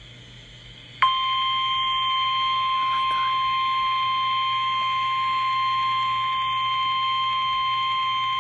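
Emergency Alert System attention signal: one steady high-pitched alarm tone that comes in abruptly about a second in and holds without a break, the tone that announces an emergency broadcast.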